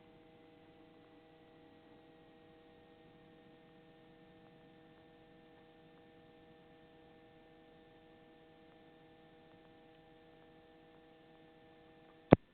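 Faint steady hum made of several steady tones, one of them slowly falling a little, heard over the helicopter's headset intercom feed; a single sharp click sounds near the end.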